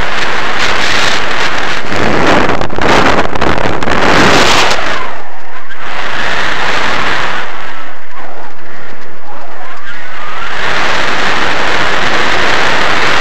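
Wind buffeting a helmet-mounted camera's microphone during a parachute descent: a loud, overdriven rush that swells about two seconds in, eases off near the middle and builds again near the end.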